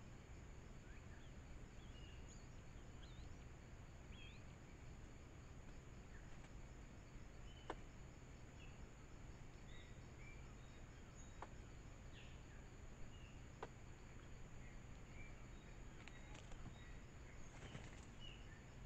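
Faint woodland ambience: scattered short bird chirps over a steady high-pitched drone and hiss, with a few sharp clicks in the middle.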